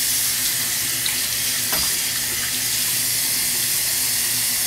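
Hot water running steadily from a tap, an even rush that holds at one level, as a face is wetted before lathering for a shave.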